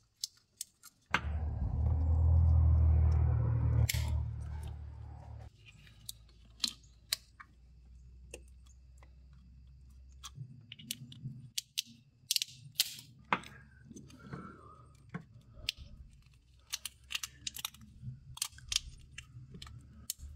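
Plastic corrugated wire loom and wiring being handled and pushed into place by hand, with small clicks and crackles throughout. About a second in, a loud low rumble starts suddenly and fades out over about four seconds.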